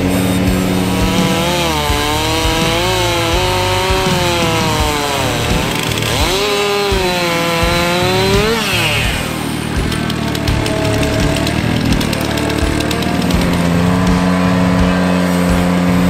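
Background rock music with a distorted electric guitar playing a bending lead line over sustained low notes.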